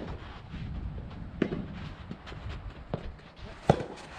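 Soft tennis balls struck by rackets in a rally: a few sharp pops about a second or so apart, the loudest near the end, over a low rumble of wind on the microphone.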